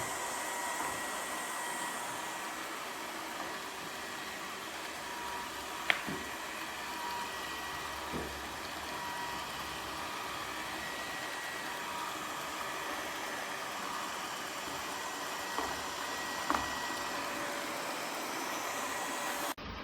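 Robot vacuum cleaner running: a steady whir of suction with a thin high whine, and a few sharp clicks or knocks, the loudest about six seconds in.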